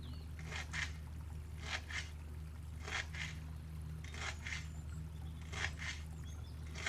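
Short scraping strokes coming in pairs, about five pairs roughly a second and a quarter apart, over a steady low hum.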